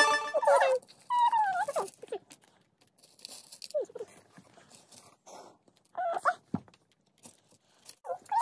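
A few short, high-pitched whining cries with pauses between them. The first is the longest and loudest, and the next one falls in pitch.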